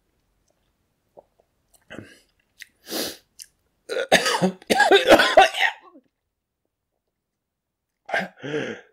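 A man coughing from the burning heat of a super-hot chili pepper he has just chewed: one cough about three seconds in, a louder fit of coughs from about four to six seconds, and another cough near the end.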